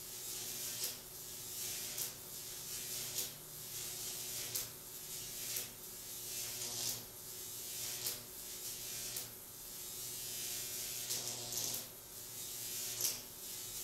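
A steady low electrical hum with a soft hiss that swells and fades about once a second; no knock or slam is heard.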